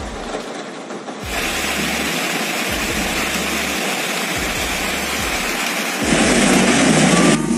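Steady rushing of meltwater and hail slush washing down a paved street, louder from about six seconds in.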